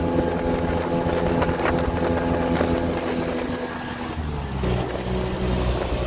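Speedboat engine running under way, its note dropping to a lower pitch about four seconds in.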